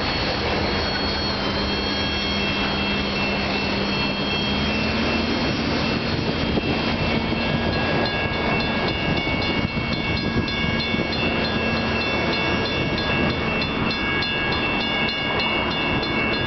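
Freight train led by an EMD GP50 diesel locomotive rolling past: a steady diesel drone that rises slightly about five seconds in, over the running noise of wheels on rail with a thin high ringing. From about halfway through, a regular clicking of the wheels joins in.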